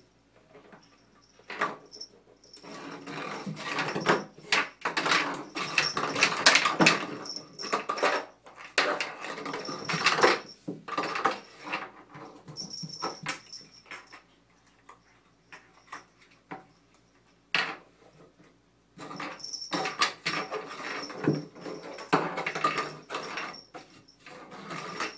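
A cat's paws and claws scrabbling and skittering on a dry bathtub, in bursts of rapid scratching and tapping with a quieter stretch in the middle.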